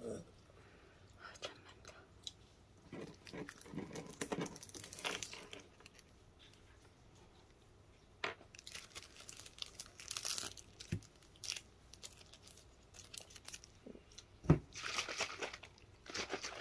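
Faint crinkling and rustling of packaging in short spells, with scattered light clicks and a soft knock.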